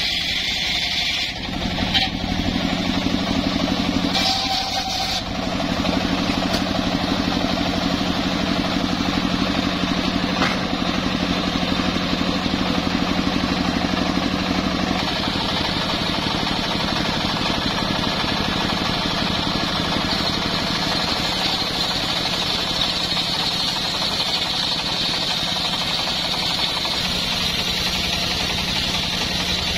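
Homemade engine-driven circular sawmill running steadily, its blade cutting lengthwise through a mahogany beam.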